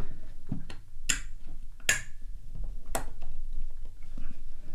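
Small sharp metallic clicks, three clear ones about a second apart with a few fainter ticks, as brake pads, pad spring and retaining pins are pushed and seated by hand in a BMW R100CS brake caliper.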